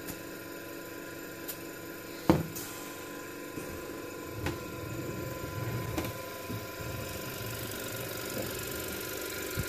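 Respironics Millennium oxygen concentrator running: the steady hum of its air compressor, with a few clicks and one sharp knock about two seconds in.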